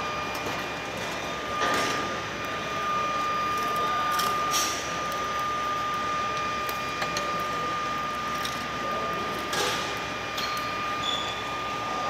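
Foundry machinery running steadily while molten iron is poured from a ladle, with a constant high-pitched whine over the hum. A few short knocks come through about two seconds in, near the middle, and again a couple of seconds later.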